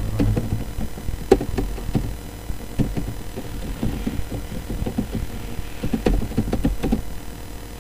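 Computer keyboard being typed on: quick, irregular key clicks over a low steady hum.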